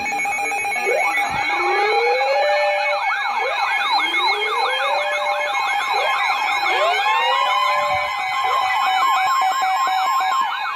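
Several emergency vehicle sirens sounding at once, slow wails rising every couple of seconds layered with fast yelps, over a steady alert tone.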